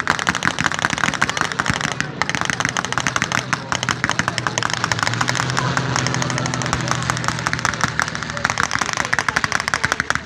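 Continuous rapid gunfire, machine-gun bursts and shots overlapping without pause, as in a staged battle firing blanks. About halfway through, the drone of a propeller aircraft engine passing low overhead rises under the shooting, then fades near the end.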